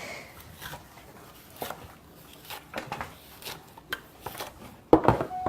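Scattered light clicks and knocks of things being handled on a kitchen counter, with a few louder knocks near the end.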